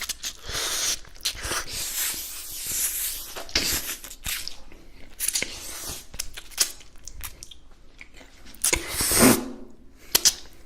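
Close-miked eating: crunchy bites and chewing, in short sharp crackles and crunches, with a louder burst about nine seconds in.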